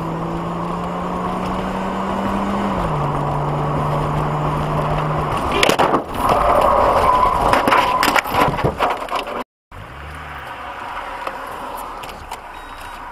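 Car crash heard from inside a car: a steady engine and road drone whose hum drops in pitch about three seconds in, then about six seconds in a sudden loud impact followed by a few seconds of crunching, cracking and scraping. The sound cuts out briefly, then comes back quieter.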